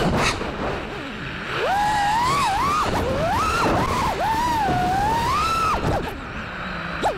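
FPV freestyle quadcopter's brushless motors whining, the pitch swooping up and down with the throttle over a rush of air. The whine drops away briefly about a second in and again near the end as the throttle is cut.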